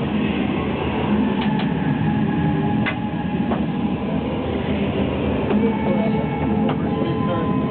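Hockey players in skates and gear filing down a hallway, sticks and skates clacking with scattered sharp clicks over a steady loud din.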